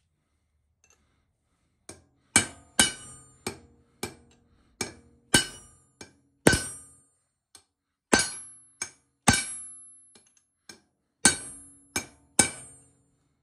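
Ball-peen hammer driving a cold chisel into the drilled-through bearing retaining ring on a rear axle shaft: sharp metal-on-metal blows, each ringing briefly, about sixteen of them at uneven intervals starting about two seconds in. The chisel is splitting the retaining ring so it can slide off the axle.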